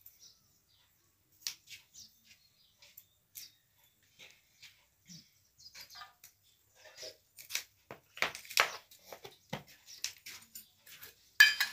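Light clicks and taps of spoons and hands on stainless-steel plates and bowls while chopped onion is handled. The taps come sparsely at first and grow busier and louder in the last few seconds.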